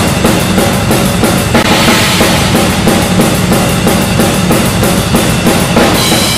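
Drum kit with Paiste RUDE cymbals played hard in a fast, steady heavy-metal pattern: rapid bass drum and snare strokes under a wash of crashing cymbals.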